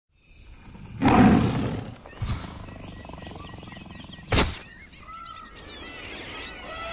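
Designed sound effects for an animated logo reveal: a loud rushing swell about a second in, a short knock, then a sharp hit about four seconds in as the logo bursts onto the screen, followed by faint warbling tones.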